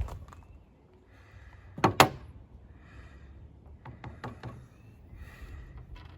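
Two sharp wooden knocks about two seconds in, then a few lighter clicks and faint rustling as a hand-drill fire kit (horseweed spindle and hardwood fireboard) is handled.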